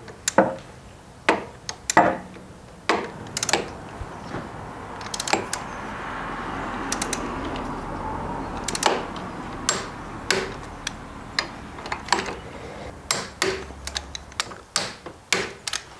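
Ratchet torque wrench clicking as it tightens the handlebar riser clamp bolts to torque: sharp, irregular clicks about once a second, some in quick pairs.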